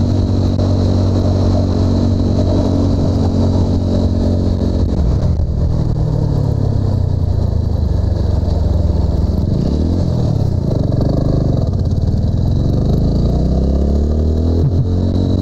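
TVS Apache RTR 200's single-cylinder engine running under a rider. The revs hold steady at first, then fall and climb again several times as the throttle is closed and opened.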